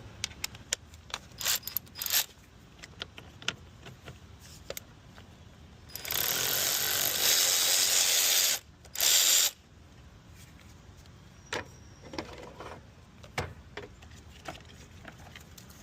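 Hand tools clicking and clanking on the battery's fittings while a car battery is taken out, with a loud spell of rapid ratcheting from a ratchet wrench about six seconds in, lasting over two seconds, then a short second spell.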